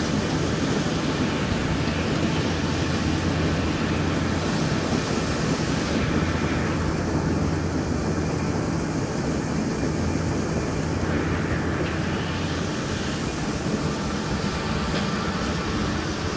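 Vlaming tulip bulb harvester running: a steady mechanical drone from the machine and its drive, over the continuous rattle of bulbs and clods travelling on the conveyor belts. The low hum eases about three quarters of the way through.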